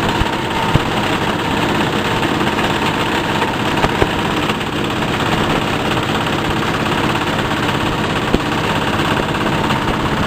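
Fabric and foam shredding machine running with a loud, steady mechanical noise, with a few sharp knocks.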